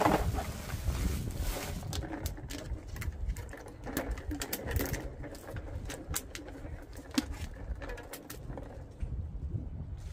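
Plastic produce bags rustling and items knocking and clicking as groceries are shifted around inside a plastic cooler, including a clear plastic egg tray being lifted and handled. Scattered short clicks and knocks over a low steady rumble.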